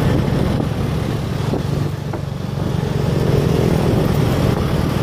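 Motorbike engine running steadily at cruising speed, with road and wind noise from riding.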